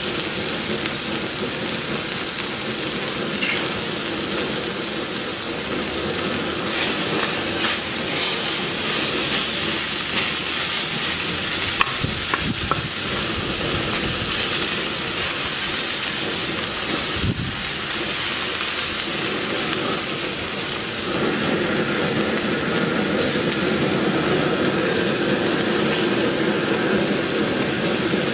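Strips of beef tenderloin searing in a smoking-hot wok: a steady, loud sizzle, with a wooden spoon now and then stirring and scraping the pieces. The sizzle grows louder and fuller about twenty seconds in.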